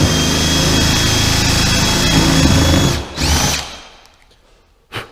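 Cordless drill boring a hole with a 5/8-inch spade bit, running steadily with a high whine, then stopping about three seconds in, followed by a brief spin-up as the trigger is pulled once more. A light knock comes near the end.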